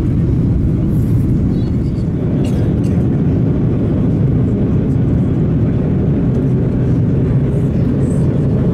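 Steady low rumble of an Airbus A330-200 cabin in flight: the engines and rushing air heard from inside the passenger cabin.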